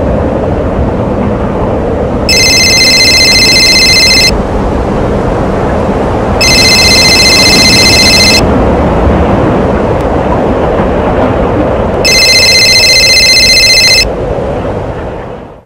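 A telephone ringing, three rings of about two seconds each with pauses between them, over a steady rushing noise. The noise fades away near the end.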